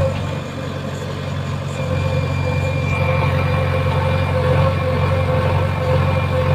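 Heavy machine's diesel engine idling steadily, with a steady whine above the engine note.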